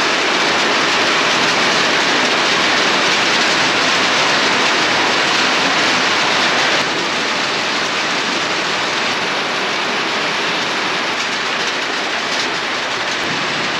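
Heavy tropical rain pouring down, a dense steady hiss that drops a little in level about seven seconds in.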